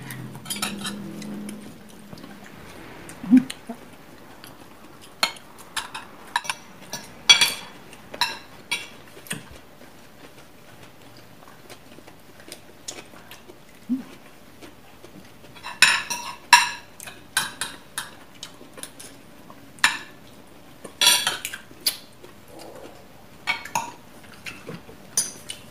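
Metal spoons and forks clinking and scraping against ceramic plates during a meal: scattered light taps, with quick flurries of clinks about sixteen and twenty-one seconds in.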